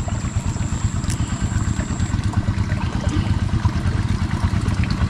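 Steady rushing of water running in a small stony ditch, under a choppy low rumble.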